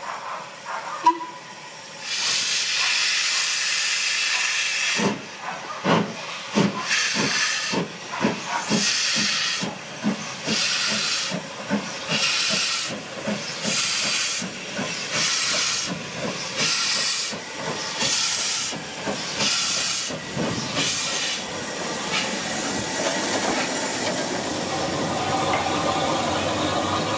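Ivatt class 2MT 2-6-0 steam locomotive starting a train: a steady hiss of escaping steam, then slow, even exhaust beats, each with a burst of hissing steam. Near the end the beats die away into a steadier running sound.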